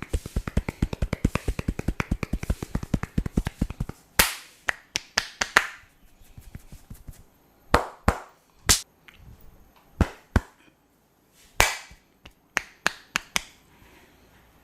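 Barber's hands tapping and slapping during an Indian head massage: a fast, even run of taps, about nine a second, for the first four seconds, then single sharp slaps and claps, some in quick pairs, a second or two apart.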